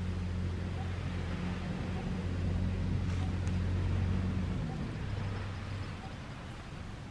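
A low, steady engine hum that swells toward the middle and fades about five seconds in, like a motor vehicle passing at a distance.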